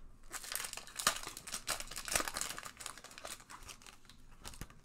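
A Tim Hortons hockey card pack's foil wrapper being torn open and crinkled by hand: a dense crackling for about three seconds that tapers off near the end.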